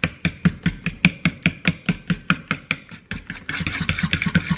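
Batter being stirred fast in a mixing bowl, the utensil knocking and scraping against the bowl in quick regular strokes, about four or five a second. A grainier scraping joins in about three and a half seconds in.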